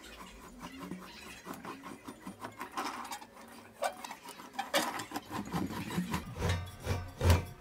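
Handwheel-driven screw lift of a steel stand's retractable casters being cranked: a run of quick metallic clicks and rattles as the wheel and threaded rod turn. Near the end come a few louder, low knocks.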